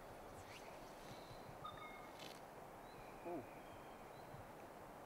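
Faint steady river flow with scattered bird calls: a few thin whistled notes, and a short falling call about three seconds in.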